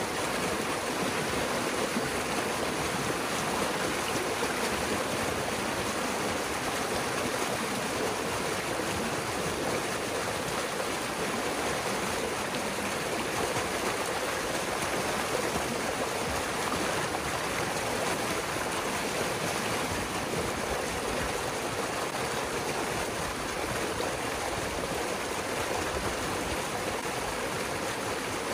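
Pond water rushing steadily through a breach cut in a beaver dam, pouring out in a foaming torrent as the flooded pond drains.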